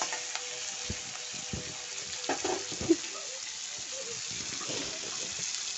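Chopped onion, capsicum and tomato sizzling in hot oil in a metal kadai, with a spatula stirring and knocking against the pan a few times, the sharpest knock about three seconds in.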